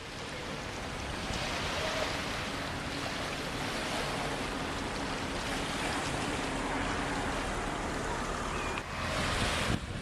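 Steady rushing noise of wind and sea surf, with wind buffeting the microphone.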